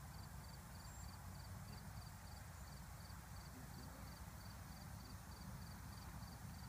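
Insect chirping steadily in the grass, short high chirps about three a second, over a low steady rumble of wind on the microphone.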